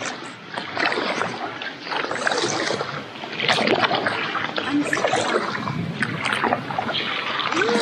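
Kayak paddle strokes dipping and splashing among water lily pads, with water sloshing along the plastic hull, coming in uneven swells about once a second.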